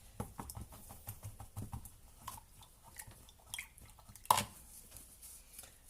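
A paintbrush dabbing and scrubbing acrylic paint, making a string of small irregular taps and scrapes, with one sharp knock about four and a half seconds in.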